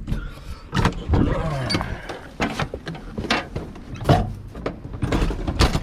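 Dairy cattle being fed: a short, falling low moo or two among repeated knocks and clanks.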